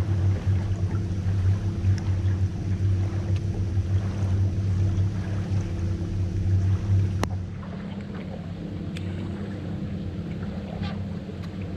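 Boat motor running with a steady hum. A sharp click comes about seven seconds in, and after it the motor runs noticeably quieter.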